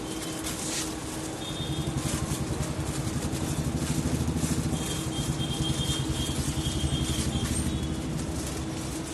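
A motor running with a rapid pulsing rumble that builds about two seconds in and eases off near the end, over a steady low hum.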